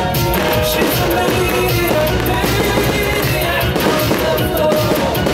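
Music playing steadily, with no separate firework bangs standing out above it.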